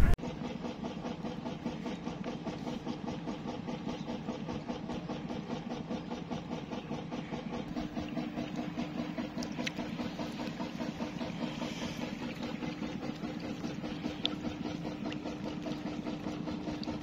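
A small engine running steadily at idle, with a couple of sharp clicks about ten and fourteen seconds in.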